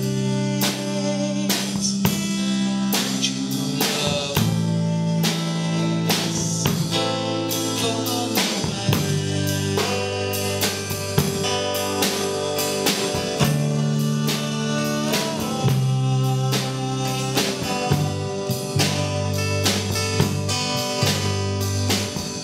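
Live rock band playing an instrumental passage: drum kit keeping a steady beat under bass guitar, acoustic guitar and electric guitar.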